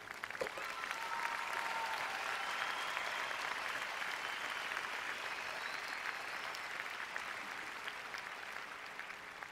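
Large arena audience applauding steadily, the clapping slowly dying down near the end.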